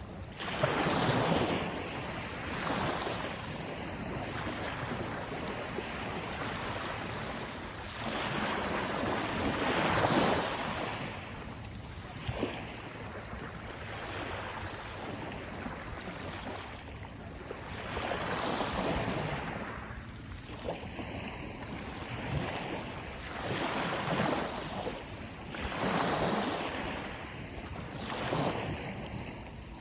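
Sea waves washing in and drawing back, each surge of hissing water swelling and fading every few seconds.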